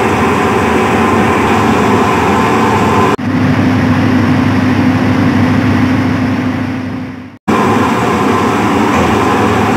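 Steady drone of a ferry's diesel engine mixed with rushing, churning water. It breaks off abruptly twice, about three and seven seconds in. In the middle stretch, over the wake at the stern, a steady low hum stands out and fades just before the second break.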